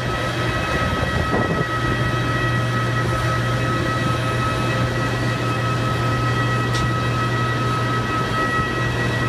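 Steady mechanical whine and drone on the apron beside a parked Airbus A319, typical of an airliner's auxiliary power or ground power running: two steady high tones over a low hum that does not change.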